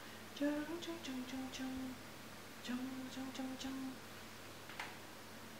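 A person humming a slow lullaby tune in two short phrases of held notes, stopping about four seconds in.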